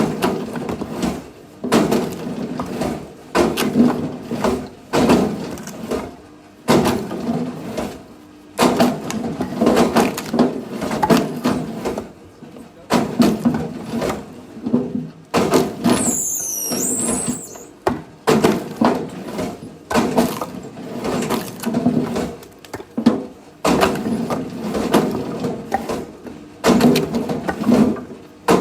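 Firewood being split: a run of wood cracking and splintering, one split after another every second or two.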